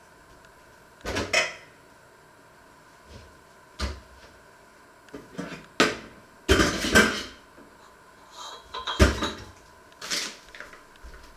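Irregular knocks and clatters of kitchen things being handled, sharp and short, coming every second or two, with a busy cluster past the middle and the loudest knock about three-quarters of the way through.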